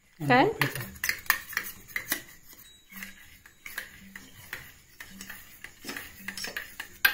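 A metal spoon clinking and tapping against a small bowl as egg is beaten for an omelette, an irregular run of light clicks.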